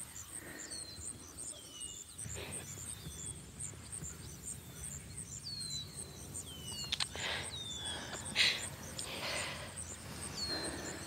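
Outdoor evening ambience: insects chirping in a steady, even, high-pitched pulse, with a bird giving short falling chirps every second or so. A few brief soft rustles or breaths come through, the most noticeable around a third of the way in and past the middle.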